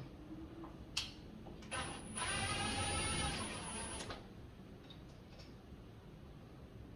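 A cordless drill-driver runs for about two and a half seconds with a high whine, driving a screw of the door lock, after a single click.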